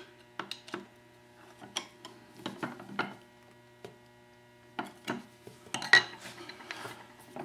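Scattered metallic clicks and clinks from the parts of a Lie-Nielsen chain drive vise as its screw is tightened, the sharpest one near the end, over a faint steady hum.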